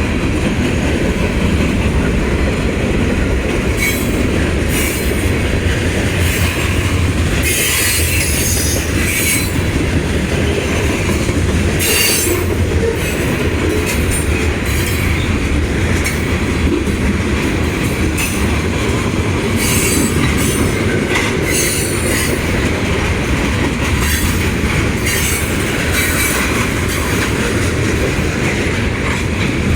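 Union Pacific freight train's cars, tank cars among them, rolling past at speed: a steady heavy rumble of steel wheels on rail, broken by irregular short high-pitched squeals and clatter.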